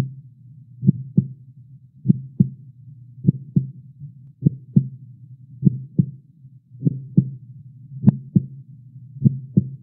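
Heartbeat-like double thumps, one pair about every 1.2 seconds, over a low steady drone: the opening of a soundtrack.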